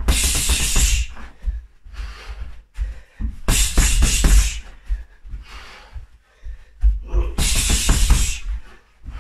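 Boxing gloves striking a freestanding punching bag in three rapid flurries of punches, each lasting about a second: one at the start, one about three and a half seconds in, and one about seven and a half seconds in.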